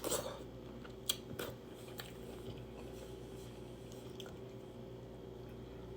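Close-miked mouth sounds of a person biting and chewing shrimp: a few sharp smacking clicks in the first two seconds, then only faint chewing over a steady low background hum.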